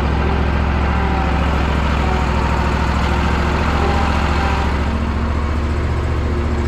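Engine running steadily at low speed, an even rapid beat with no change in pitch or load.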